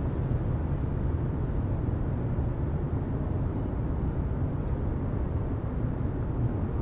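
City street ambience: a steady low rumble of traffic, with no single car, horn or voice standing out.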